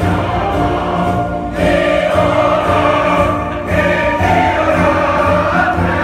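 Loud live concert music with many voices singing together, several held notes at once over a steady low beat: a crowd singing along.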